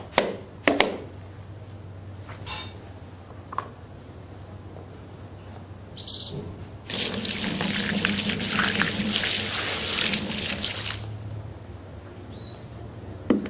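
A few knocks as the hard plastic case is handled, then, about seven seconds in, water splashes loudly onto the lid of the Vanguard Supreme 27F hard case for about four seconds before stopping.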